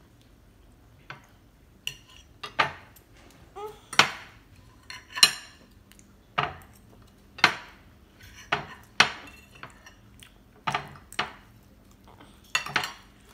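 Metal knives and forks clinking and scraping against ceramic plates as sausages are cut: irregular sharp clinks, roughly one or two a second, some ringing briefly.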